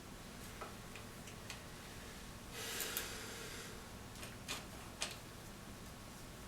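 Scattered light clicks and a short scraping rustle, about two and a half seconds in, as the fork's metal parts and a homemade spring-compression tool are handled.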